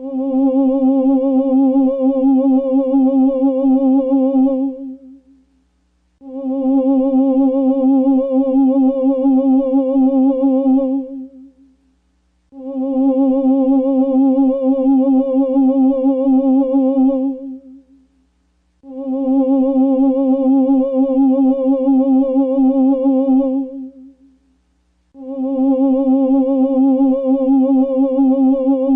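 Ghost sound effect: a wavering, moan-like hum held at one pitch, repeated five times, each lasting about five seconds with a second-long gap between.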